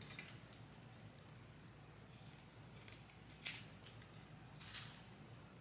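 Small scissors snipping through crocheted locs at the root. A few short, faint snips come in the second half.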